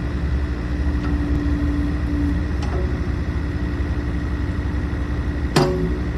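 Yanmar diesel engine of a Komatsu PC45 MR-3 mini excavator idling with a steady low, pulsing rumble. A single sharp knock sounds about five and a half seconds in.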